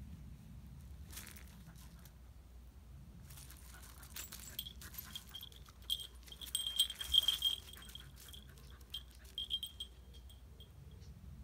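Jingling on a dog's collar as the dog walks about: short bursts of ringing at one high pitch that come and go with its steps, starting about four seconds in and loudest in the middle, with light crunches of paws on gravel.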